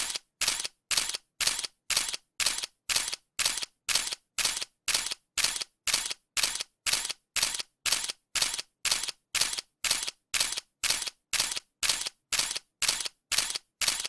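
Camera shutter clicking over and over in an even rhythm, about two clicks a second.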